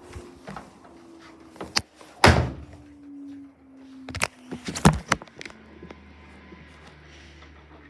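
Samsung inverter washing machine winding down after a spin, its whine slowly falling in pitch. Several loud thunks break in, the loudest about two seconds in, and a low steady hum is left near the end.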